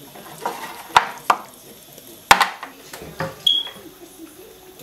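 Kitchen clatter: a handful of sharp knocks of hard objects being handled, with a brief high tone a little past the middle.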